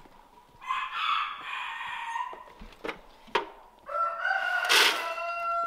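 Rooster crowing twice, a call of about a second and then a longer one near the end, with a couple of sharp knocks between them.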